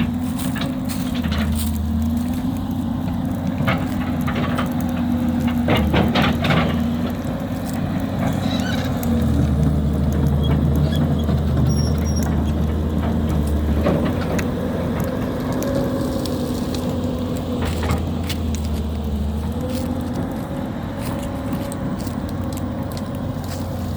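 Engine of a heavy machine running as it works the brush pile, its pitch dipping and rising now and then under changing load. A few sharp cracks and knocks come about six seconds in.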